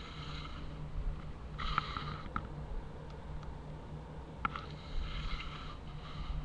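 A person sniffing twice close to the microphone, each breath lasting about a second, over a steady low hum, with a few faint clicks.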